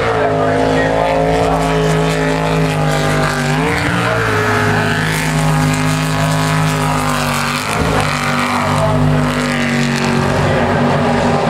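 Jet sprint boat's engine running hard at high revs. Its note dips and climbs again about three and a half seconds in, and dips briefly near eight seconds.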